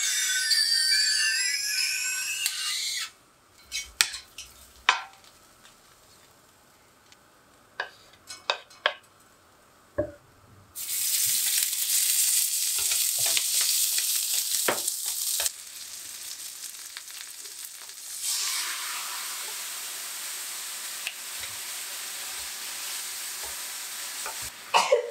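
Konjac cubes dry-frying in a frying pan, squeaking as a wooden spatula pushes them around for the first few seconds, then a quieter stretch with scattered spatula knocks. About 11 seconds in, sesame oil and red chili go into the hot pan and it breaks into a loud sizzle. The sizzle eases after a few seconds and settles into a steady frying hiss as the konjac is stirred.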